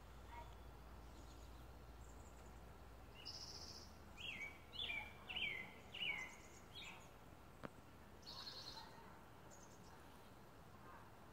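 A songbird singing faintly: a short, rapid buzzy trill about three seconds in, followed by four quick down-slurred notes and a few scattered notes, then another buzzy trill. A single sharp tick falls between them.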